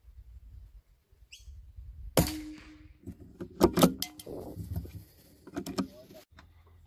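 Several sharp knocks and clicks from a scope-mounted rifle being handled and shifted, loudest about two seconds in and again just after the middle. A short bird chirp comes a little over a second in.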